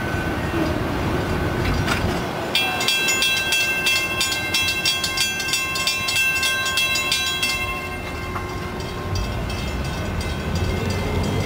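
Freight train rolling past a railroad grade crossing, then the crossing's warning bell ringing in fast repeated strikes for about five seconds before it stops as the gates lift. A low rumble follows near the end.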